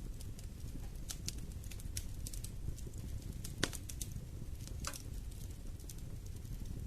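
Wood fire burning in a fireplace: a steady low rumble of flame with scattered crackles and sharp pops, one louder snap about halfway through.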